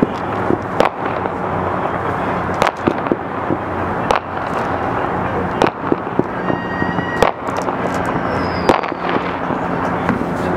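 Distant fireworks going off in about a dozen sharp bangs at irregular intervals over a steady background of city noise. A brief high tone sounds about six and a half seconds in.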